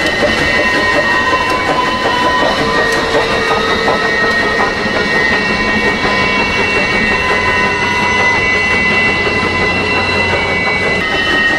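A steam train running past along the track: a steady, loud rumble and rail rattle with a steady high squealing tone over it.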